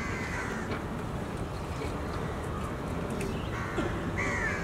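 Crows cawing a few times over a steady outdoor background hum, with calls near the start and again near the end.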